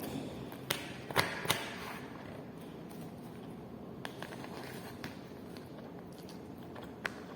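Eating noises from a rice-and-chicken meal: a few sharp clicks and taps, three close together in the first two seconds and fainter single ones later, over steady low background noise.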